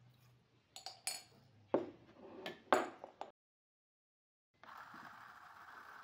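A ceramic cup clinks several times against the steel jug of an electric milk frother. After a short break the frother's whisk motor starts and runs with a steady whir.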